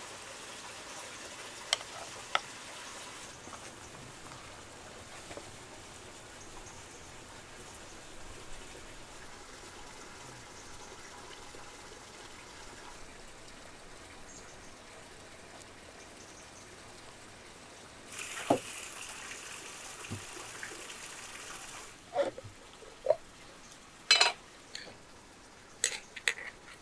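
Sharp metal clinks of utensils: a ladle tapping a steel cooking pan twice, then a fork clinking and scraping against a glass jar several times while fish is lifted out. Between them, a faint steady hiss and a few seconds of rushing noise.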